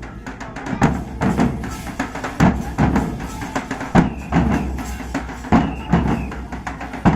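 Dhak, the large Bengali barrel drum, beaten in a fast rhythm of dense, repeated strokes.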